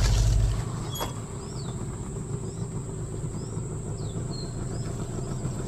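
Outdoor riverside ambience: a low rumble that drops away about half a second in, then a steady low hum, with a few short chirping bird calls and a steady high whine.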